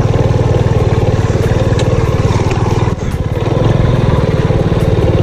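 Motor scooter engine running under way, a steady rapid putter that dips briefly about halfway through.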